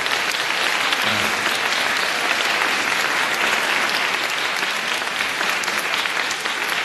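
Steady applause, many hands clapping together.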